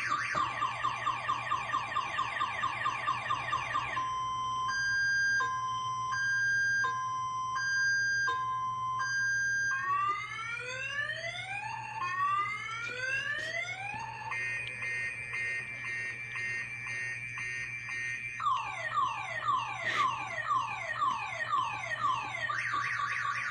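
Car alarm siren cycling through its tone patterns. It opens with a fast warble, then a two-tone beep alternating about once a second, then a few slow rising whoops and a rapid steady trill. Falling sweeps, about two a second, follow before it returns to the fast warble near the end.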